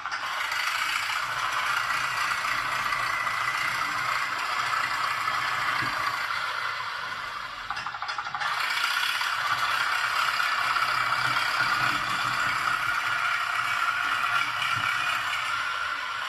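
RC crawler tractor running: a steady mechanical rattle from its tracks and gearing, which eases briefly about eight seconds in and then picks up again.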